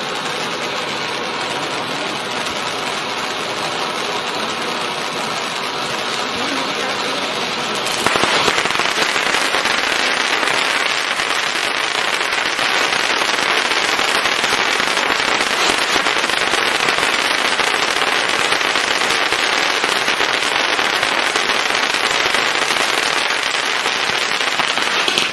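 Sunwing Never Ending Fountain (SW-F2008) ground fountain firework burning with a steady spray of sparks. About a third of the way in it grows louder and denser, crackling as it throws out a wide burst of coloured, flashing sparks. It cuts off suddenly at the end.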